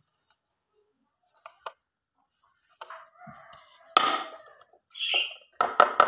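Wooden bird trap cage being handled: a few light wooden clicks, then a sharp knock about four seconds in. A chicken calls in the background.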